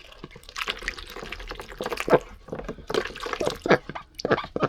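Duck splashing in a water container, with irregular splashes and drips. The duck is in heat and doing her display in the water.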